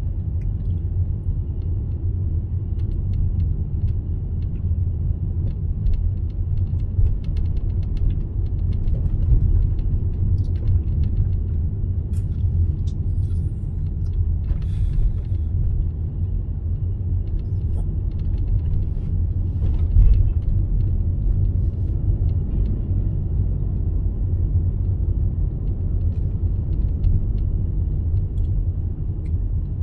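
Steady low road and engine rumble inside a moving car's cabin, with scattered small clicks and one brief thump about twenty seconds in.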